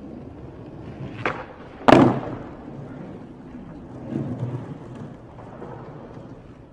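Skateboard on concrete: a low rumble of wheels rolling, broken by two sharp clacks of the board about half a second apart, the second louder, a couple of seconds in. Fainter board knocks follow.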